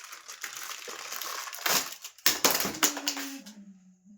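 Packaging being handled and torn open, crinkling and rustling in irregular bursts, loudest about halfway through. Near the end a low steady hum sounds, stepping down once in pitch.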